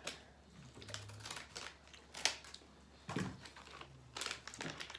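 Scissors cutting open a plastic candy bag, with the wrapper crinkling and a scatter of sharp snips and crackles, the sharpest a little after two seconds in.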